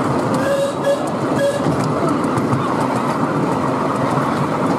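Miniature steam train, a ridable model of the Southern Railway Merchant Navy-class 4-6-2, running along its track with a steady rumble of the riding cars and regular clicks from the wheels. A few short high squeaks come between about half a second and a second and a half in.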